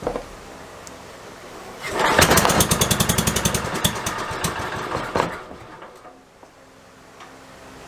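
Restored Kohler K301 single-cylinder engine starting up, running for about three seconds with rapid, even firing, then stopping.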